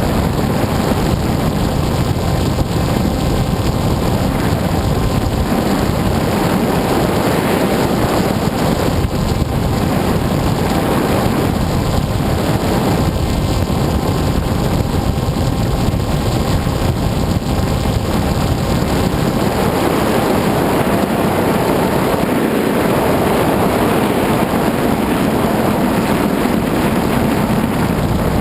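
Wind rushing over the onboard microphone of an FPV model aircraft in flight, steady throughout, with the faint even whine of its motor and propeller underneath.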